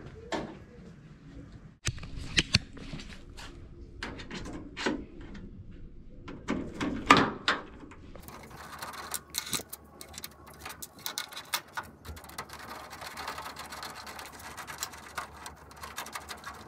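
Scattered knocks and clatter of tools on the grille, the loudest about halfway, then a ratcheting screwdriver clicking rapidly as it turns out the grille's Phillips screws.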